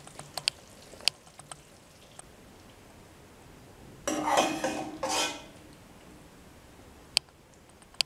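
Serving utensil clinking against a stainless steel pot and a porcelain plate as stew is dished out: a few sharp clinks, with a louder, longer scrape starting about four seconds in lasting about a second.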